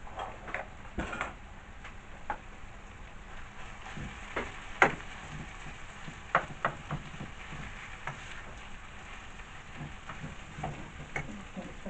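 Rice and vegetables sizzling as they stir-fry in a pan, with a utensil scraping and knocking against the pan as it is stirred; the sharpest knock comes about five seconds in.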